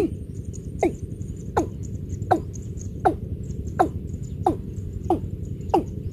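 Watercock calling: a steady series of hollow, falling notes, about one every three-quarters of a second, over a low steady background hiss.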